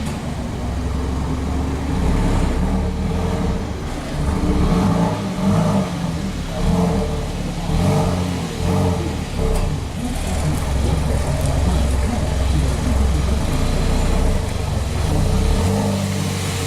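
A car engine running steadily with a low hum. Over the middle seconds, a mid-pitched sound repeats on top of it about once a second.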